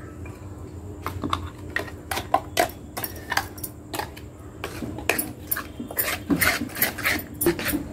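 A metal spoon clinking and scraping in a pan as thick ground ginger chutney is stirred into the tempering, in quick irregular taps that grow denser about halfway through.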